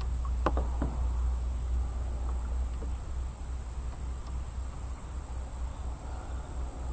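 Insects trilling in one steady high note over a constant low rumble, with a few sharp knocks in the first second.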